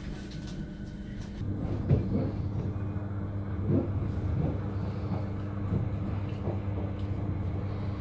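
Commuter train heard from inside the carriage: a steady low hum over a rolling rumble, growing louder about a second and a half in, with a few short knocks on top.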